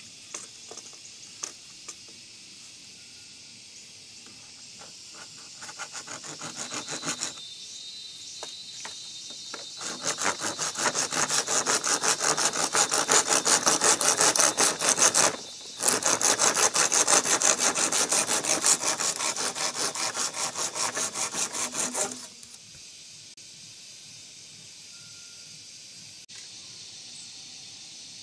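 Hand saw cutting through a bamboo pole in quick back-and-forth strokes. A short run comes first, then a long, louder run from about ten seconds in, with one brief break midway, ending about twenty-two seconds in.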